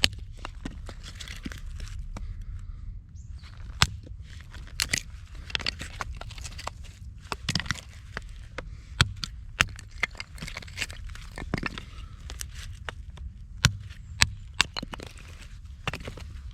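Dry wood being broken and handled for a fire: irregular sharp cracks and snaps, with rustling between them.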